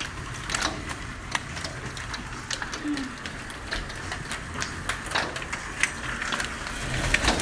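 Hail hitting hard surfaces: a dense, irregular patter of sharp ticks, growing a little louder near the end.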